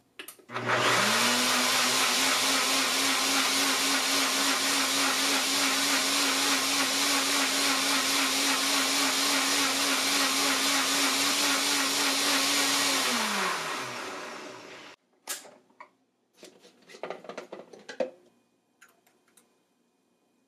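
NutriBullet 1200-watt blender motor blending grated coconut, green chilies and water on medium speed. It spins up about half a second in, runs at a steady pitch, then winds down with a falling pitch and stops after about fourteen seconds. A few clunks and knocks follow near the end.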